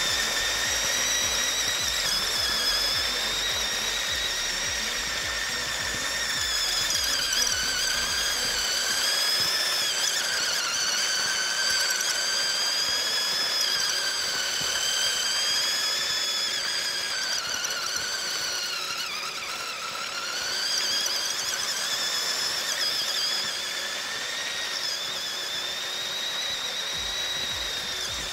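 Mould King 13152 brick-built RC racing truck driving, its electric drive motor and gears whining at a high pitch. The pitch rises as it speeds up, wavers with the throttle, and drops and recovers about two-thirds of the way through.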